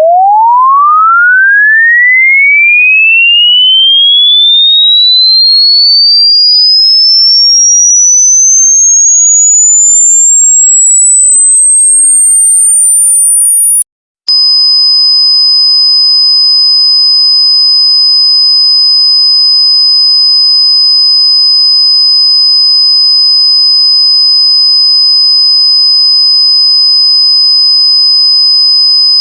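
Electronic sine-wave tone sweeping smoothly upward from a low hum to a very high pitch over about fourteen seconds, then cutting out. After a brief gap, a steady shrill test tone starts and holds, with a fainter lower tone beneath it.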